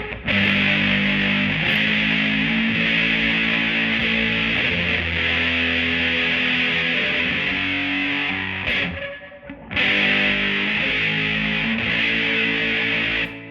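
Electric guitar played through a Big Muff fuzz pedal into a Bugera V22 tube amp with a 1960 Rola Alnico 5 12-inch speaker. It plays sustained fuzzy chords, breaks off briefly about nine seconds in, resumes, and stops just before the end.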